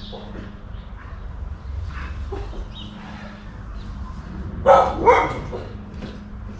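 Dogs going crazy barking, with two loud barks in quick succession about five seconds in.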